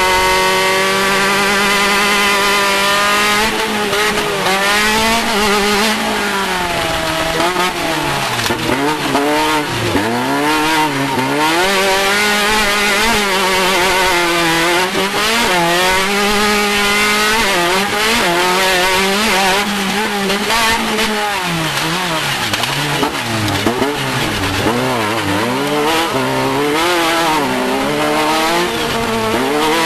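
Off-road race car engine running hard, its pitch climbing and dropping again and again as the throttle opens and lifts over the course.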